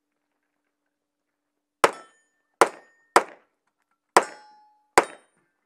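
Five pistol shots fired at uneven intervals, starting about two seconds in. Several shots are followed by a brief metallic ring, the sound of steel targets being hit.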